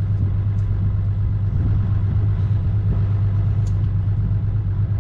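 The boat's outboard motor running steadily, a constant low hum.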